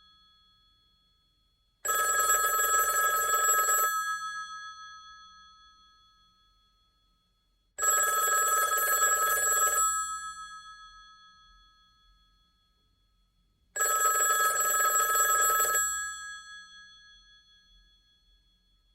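Old telephone bell ringing three times, each ring about two seconds long and about six seconds apart, its tone fading away after each ring.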